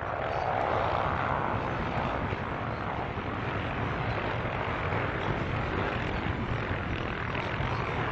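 ATV engines running hard on a race track, a steady dense engine drone that peaks about a second in and then holds.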